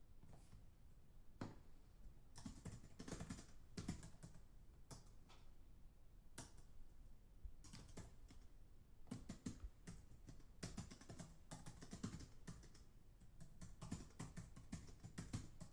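Computer keyboard typed fast, heard faint and from a distance: quick runs of key clicks with short pauses between them, the runs growing denser in the second half.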